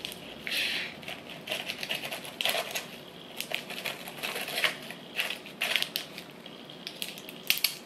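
Crinkling and crackling of a plastic rice-cracker tray and wrapper as crackers are pulled out of it by hand, a string of irregular short clicks and rustles.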